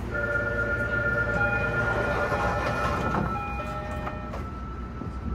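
Electronic door-closing chime of several held tones, sounding over the low hum of a stopped subway train. The doors slide shut about three seconds in.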